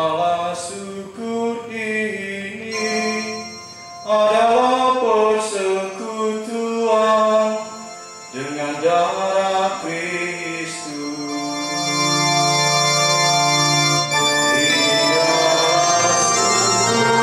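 Liturgical singing at a Catholic Mass: phrases of a sung psalm with electronic organ accompaniment, breaking off every few seconds. From about twelve seconds in the organ holds long steady chords.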